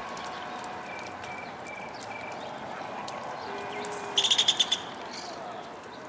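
A bird gives one short, rapid chattering call about four seconds in: a quick run of high-pitched pulses, the loudest thing here. Faint short bird notes and a steady outdoor hiss lie beneath it.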